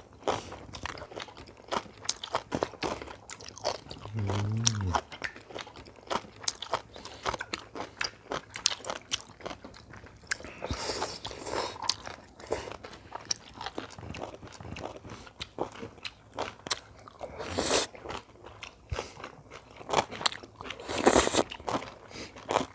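People eating at close range: chewing and crunching crisp food, with many sharp little clicks throughout. A short low hum comes about four seconds in, and a few louder noisy bursts come around eleven and twenty-one seconds.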